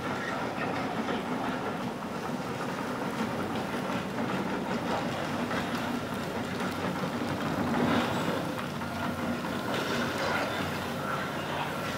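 Komatsu PC228US LC tracked excavator travelling over gravel. Its diesel engine runs steadily under the clank of its steel tracks.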